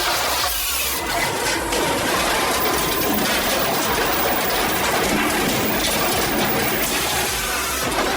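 Wood-cutting machinery running with a loud, steady, noisy din.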